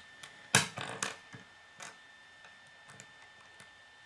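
Plastic K'nex pieces clicking as rods are pushed into connectors and set down on a wooden tabletop: one sharp click about half a second in, then a few lighter clicks over the next second and a half.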